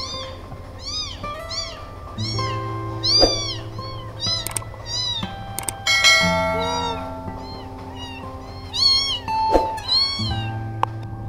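Kittens mewing repeatedly in short, high-pitched calls, about two a second, over background music. A short sound effect comes in about halfway through.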